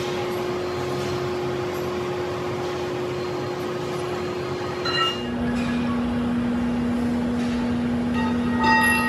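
Workshop machinery running with a steady hum and noise, its tone stepping down in pitch about five seconds in. A brief ringing tone comes about five seconds in and again near the end.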